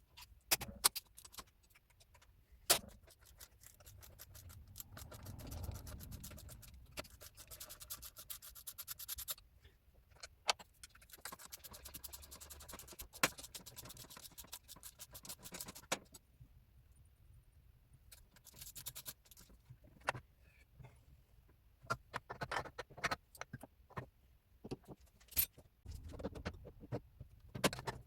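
Metal hand tools and engine parts clinking and knocking, with two longer stretches of scraping, during the teardown of a Volvo 850R engine.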